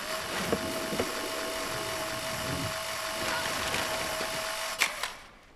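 Instant camera's motor whirring steadily as it ejects a print, a buzzing whir with a steady hum in it that stops with a click about five seconds in.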